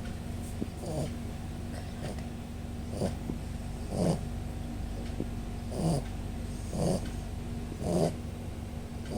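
Dog snoring: six short, rasping snores at irregular gaps of one to two seconds.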